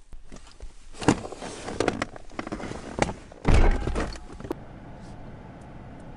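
Handling noise: a run of irregular knocks and clunks with a heavy, deep thump about three and a half seconds in, then only a faint steady hiss.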